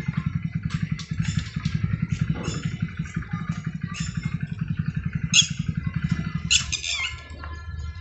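A small engine runs nearby with a fast, even putter that fades out about six and a half seconds in. Birds call throughout with short, sharp chirps, louder near the end.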